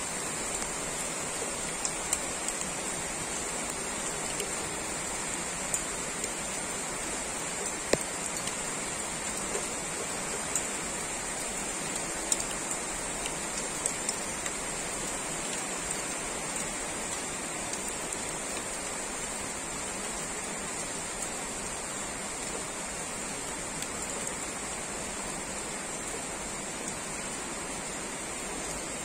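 Heavy typhoon rain falling steadily on trees, a continuous even hiss. A few sharp ticks stand out now and then.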